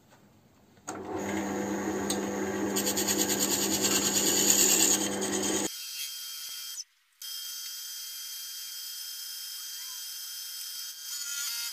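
Wood lathe spinning a vase blank while a turning tool cuts the wood: a steady motor hum under the scraping hiss of the cut, starting about a second in, growing louder, then cutting off abruptly a little before halfway. After that a thinner, high hiss of cutting carries on.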